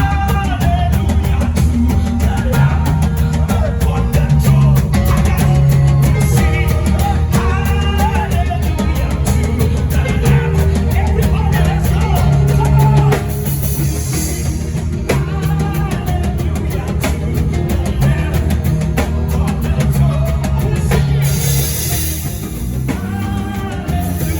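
Live worship band playing, with a drum kit driving the beat under sung vocals; the music eases slightly about halfway through.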